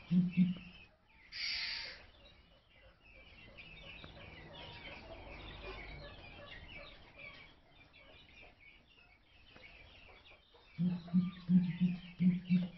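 Victoria crowned pigeon giving deep booming display calls: a quick run of low pulses at the start and again from about 11 s in. Small birds chirp faintly throughout, and there is a brief rush of noise about a second and a half in.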